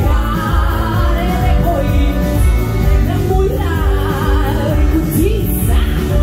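Live band music with a singer, over a heavy bass line.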